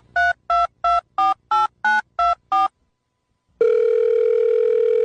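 Touch-tone telephone keypad dialling: a quick run of about nine short beeps, each a different tone pair. After a short pause a steady ringing tone starts on the line, the call connecting.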